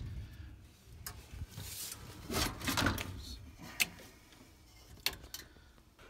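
Sheet-metal furnace door panel being handled: scattered knocks, scraping and a few sharp clicks, dying away near the end.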